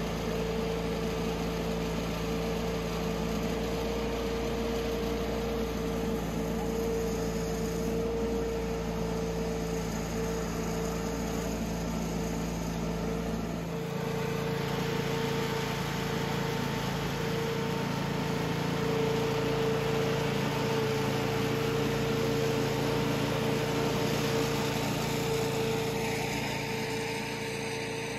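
Steady engine-driven machinery of the fire service running without a break, a constant drone with a high steady tone. The low rumble underneath drops away about halfway through.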